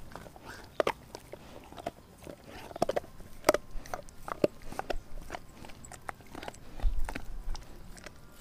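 Doberman gnawing a raw frozen pig's foot, with irregular crunching and sharp cracks of bone and gristle, the loudest about a second in and about three and a half seconds in.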